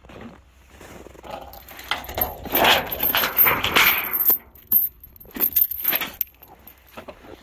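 Steel gate chain rattling and clinking against a tree post as it is handled, in a long burst about two seconds in and a shorter one near six seconds.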